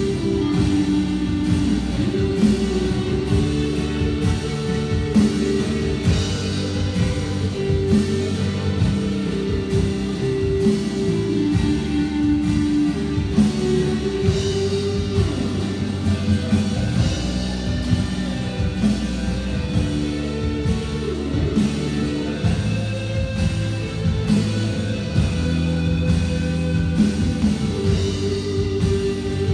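Worship band music with guitar and drum kit playing a steady beat.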